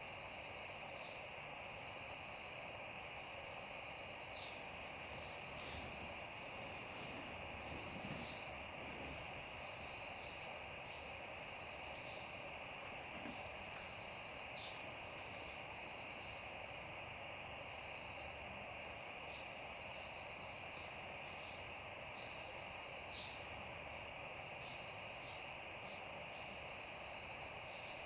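Night chorus of crickets: a steady high trill that never lets up, with short chirps scattered through it, over an even hiss.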